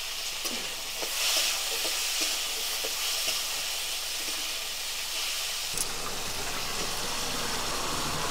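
Potato pieces and vegetable stalks frying in oil in an aluminium kadai, sizzling steadily, with a few light ticks from a spatula stirring them.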